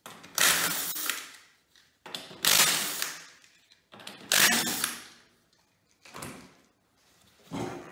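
Cordless power tool with a socket spinning off an ATV's wheel nuts in about five short bursts, each starting sharply and fading over about a second, the last two shorter.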